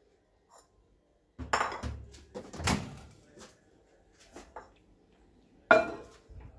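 Kenwood microwave oven's door released and opened with a few clunks and clicks, then near the end a ceramic bowl set down on the glass turntable inside with a sharp clink.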